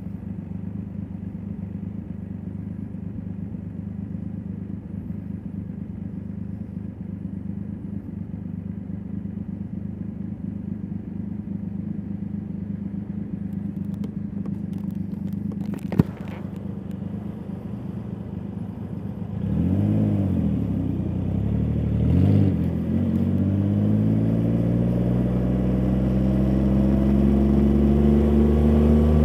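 Triumph Rocket 3 GT's 2.5-litre inline-three through a Vandemon titanium exhaust, idling steadily with one sharp click about halfway through. Then the engine note swings up and down twice and climbs steadily and gets louder as the bike pulls away and accelerates.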